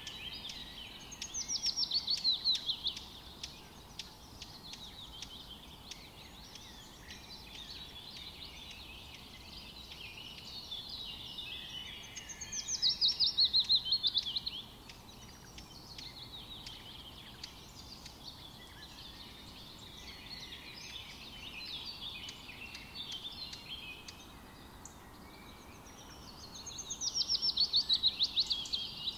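Songbirds chirping, with a loud fast trill of rapid notes falling in pitch three times, about every thirteen seconds, over a faint steady hiss.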